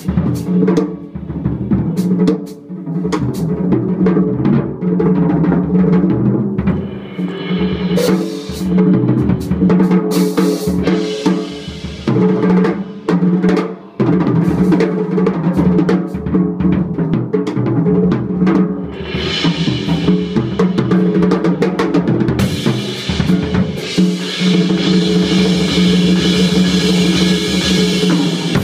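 Free jazz drum kit played busily, with bass drum, snare rolls and cymbals, over a sustained low pitched drone. Cymbal wash builds up about two-thirds of the way through.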